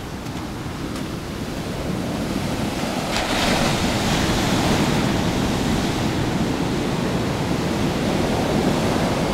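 Calm Atlantic surf breaking on a sandy beach: a steady wash of small waves that swells about three seconds in as a wave breaks, then settles.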